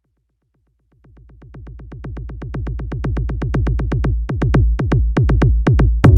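Electronic music made in GarageBand fading in: a rapid run of drum-machine hits, each dropping in pitch, grows steadily louder. A fuller track with sustained bass notes comes in near the end.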